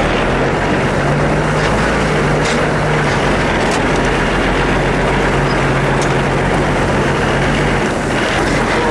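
Off-road 4x4's engine running as the vehicle drives slowly, heard through the open side window. A steady low drone sits under the noise from about a second in until near the end.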